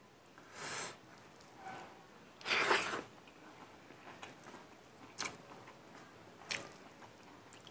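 Quiet sounds of eating rice and mustard greens by hand: soft chewing and mouth noises in a few short breathy bursts, the loudest about two and a half seconds in, then two small clicks.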